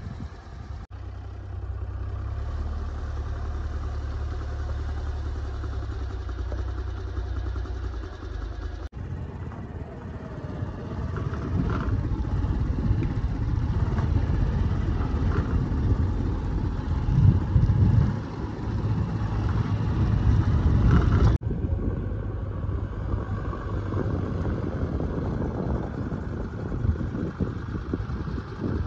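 JCB 3DX backhoe loader's diesel engine running: a steady low hum at first, then louder and uneven as the machine works. The sound changes abruptly twice.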